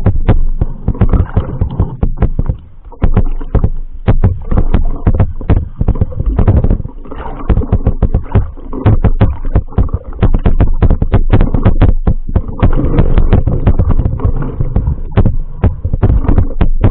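Muffled sound recorded by a camera held underwater in shallow sea: a low rumble of moving water with rapid, irregular clicks and knocks.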